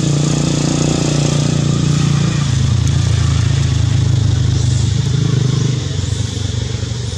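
An engine running steadily with a low hum, its pitch dropping a little about two and a half seconds in and its level easing off near the end.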